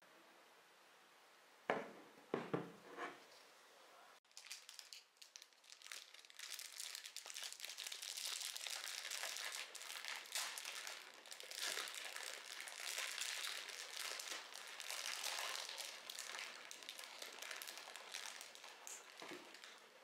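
A few sharp knocks, then a long stretch of dense crinkling and crumpling of wrapping material being handled, with another knock near the end.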